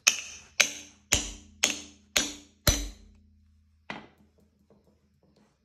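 Hammer striking a bolt pressed into the bread-packed pilot bore of the crankshaft, driving the pilot bushing out hydraulically. Six sharp metal hits about half a second apart, then a lighter seventh about a second later. Each hit is followed by a short metallic ring.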